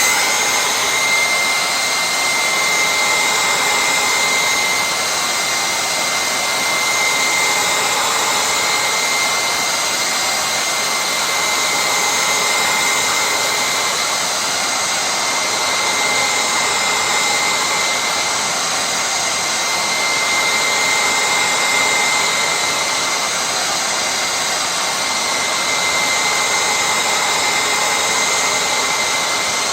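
Handheld heat gun running steadily, its fan blowing a hot-air rush with a thin high whine over it, heating the glass to soften double-sided tape.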